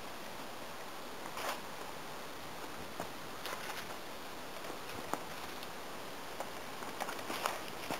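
Rustling and footsteps in grass: a few short, scattered scuffs and crackles over a steady hiss.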